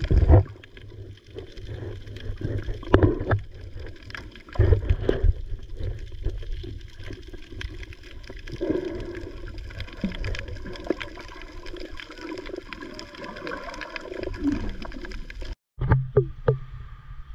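Muffled sloshing and bubbling of water heard through a submerged action camera, with irregular louder surges from swimmers' kicks and movement at the surface. Near the end the sound cuts off abruptly for a moment and different open-air sound follows.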